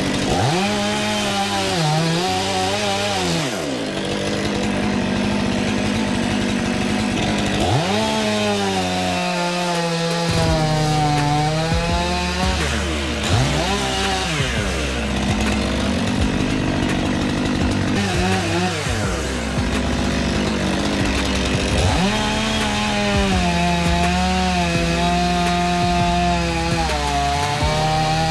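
Chainsaw cutting wood. The engine revs up, then drops in pitch as the chain bites into the cut, several times over.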